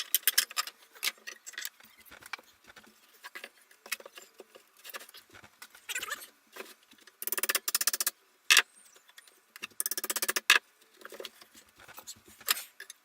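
Workshop handling of the CNC frame's poles and wood pieces: an irregular series of sharp knocks and taps, with two rapid rattling bursts of about a second each, one just past the middle and another a couple of seconds later.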